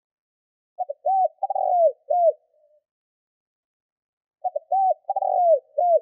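Spotted dove singing its cooing song twice. Each phrase lasts about a second and a half: a couple of quick short notes, then a longer coo and a closing coo.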